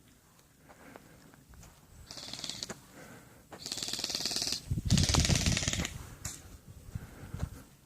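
Airsoft guns firing rapid full-auto bursts: a short rattle about two seconds in, then a louder, longer run of fast clicking shots past the middle, lasting about two and a half seconds.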